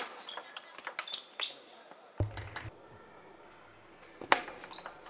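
Table tennis ball clicking off the bats and the table in a rally: sharp, irregular clicks, the loudest right at the start and another about four seconds in, with short high squeaks of shoes on the hall floor.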